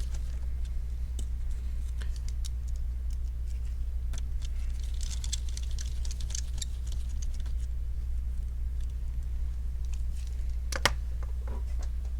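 Light scattered clicks and taps of small screws, screwdriver and plastic laptop parts being handled, with one sharper click near the end, over a steady low hum.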